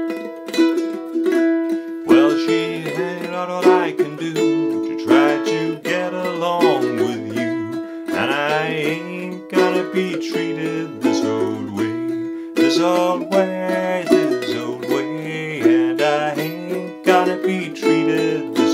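Two concert ukuleles playing together: one strumming chords on E5, B and A, the other picking a clawhammer-style melody with quick plucked notes. A lower line that slides between notes, below the ukuleles' range, comes in about two seconds in.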